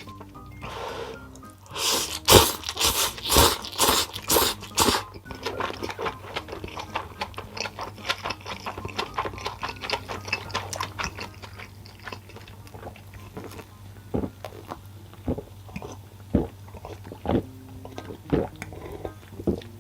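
Close-miked chewing of food. A brief hiss about a second in is followed by a run of loud crunching bites from about two to five seconds in, then quieter, scattered chewing clicks, over background music.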